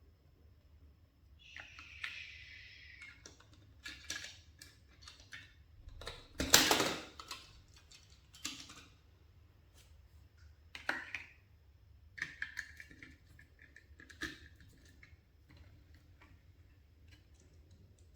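Hands handling toys: scattered small clicks and rustles, with one louder rustle about six and a half seconds in.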